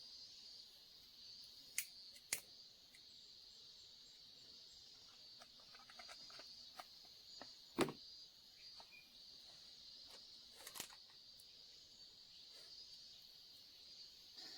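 Faint, steady high-pitched drone of insects, with a few scattered sharp clicks and knocks. The loudest knock comes about eight seconds in.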